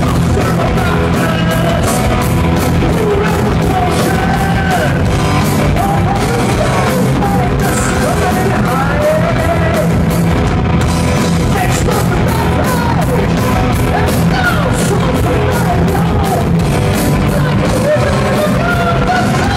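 Heavy metal band playing live: a high, gliding vocal over distorted guitars, bass and a fast, steady drumbeat, with the echo of a club hall.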